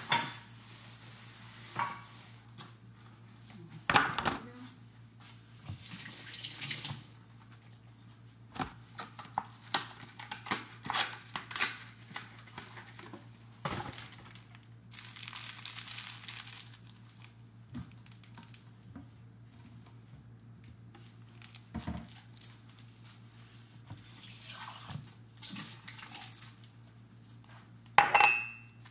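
Kitchen sink tap running in a few short spells, among clinks and knocks of dishes and utensils being handled, with a sharper knock about four seconds in and another near the end. A steady low hum runs underneath.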